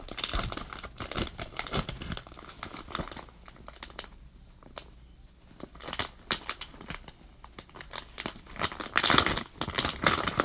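Plastic soft-bait package crinkling as it is cut and torn open, in bursts of crackling and rustling with a quieter stretch in the middle and a louder burst near the end.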